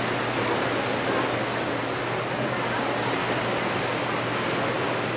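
Small waves washing onto a beach, a steady, even hiss of surf.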